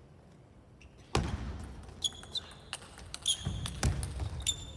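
Table tennis rally. After about a second of quiet, the ball clicks sharply on the bats and table, shoes squeak briefly on the court floor several times, and feet thud on the floor.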